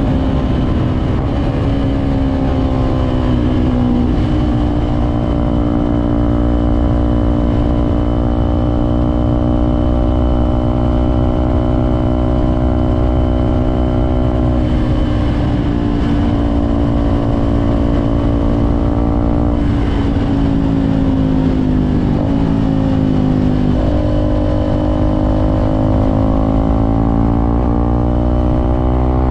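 Suzuki Gixxer SF 250's single-cylinder engine running under way at a fairly steady cruising speed. Its pitch dips about two-thirds of the way through as the revs fall, then rises steadily near the end as the bike accelerates.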